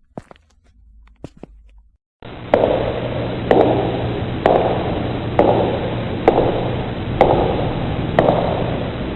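Footsteps on concrete: a few light steps, then from about two seconds in a different take in which evenly paced steps fall about once a second over a steady hiss and low hum.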